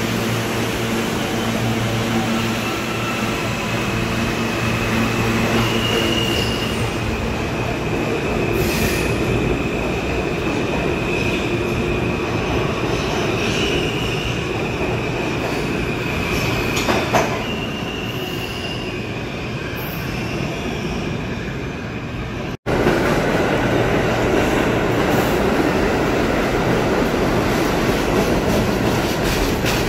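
Bombardier R179 subway train pulling out of the station, a steady electric hum under high thin tones. After an abrupt break about 23 s in, a Pullman R46 subway train runs past with dense wheel and rail noise.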